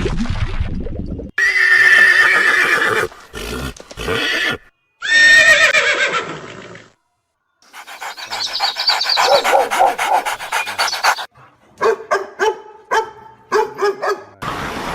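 Horses whinnying and neighing in a series of short edited clips that cut in and out abruptly: a falling whinny about five seconds in, a long wavering whinny in the middle, and quick short calls near the end.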